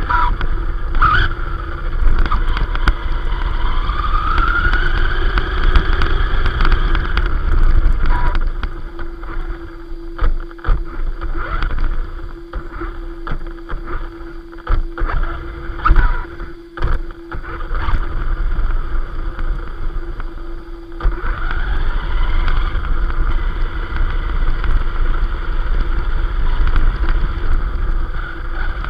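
Arrma Vorteks Boost RC car running, heard from its onboard camera: the electric motor's whine rises and falls in pitch with the throttle over a constant rumble of tyres and wind on the microphone. Through the middle stretch it runs quieter, with a steady hum and several sharp knocks, then picks up again.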